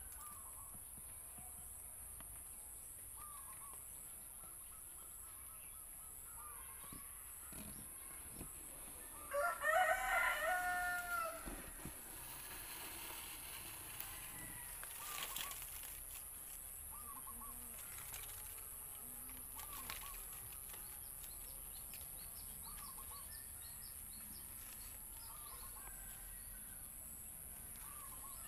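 A rooster crows once, a call of about two seconds roughly ten seconds in. Under it run a steady high hiss and faint short calls throughout.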